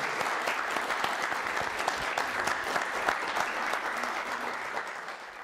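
Audience applauding: a steady patter of many hand claps that starts to die down near the end.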